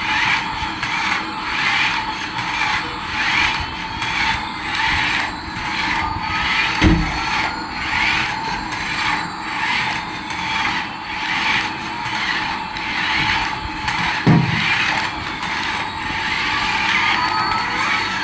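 Toy remote-control Airbus A380 running, its small motor and gears whirring with a regular pulse about once a second. Two low knocks come through, about seven and fourteen seconds in.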